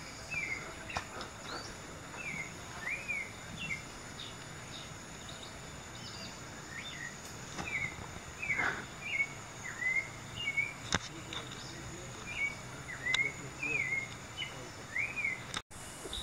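Wild birds chirping: many short whistled notes, one or two a second, over a steady high hiss, with a few sharp clicks.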